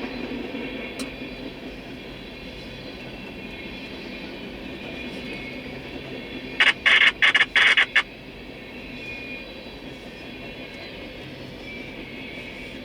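Freight train rolling steadily past, its cars rumbling on the rails. A little past halfway comes a loud, choppy run of five or six short bursts lasting about a second and a half.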